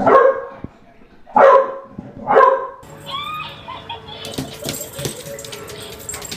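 A bulldog barks three times, short and loud. Quieter clattering with high squeaky glides follows.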